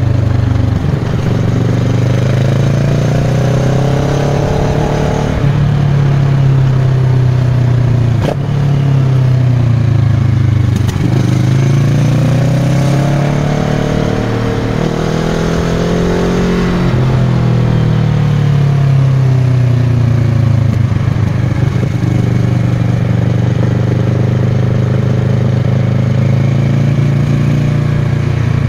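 Kawasaki Versys 650's parallel-twin engine through a Giannelli aftermarket exhaust, heard on the move: revs rise and fall twice as the bike accelerates and eases off, then settle to a steady cruise.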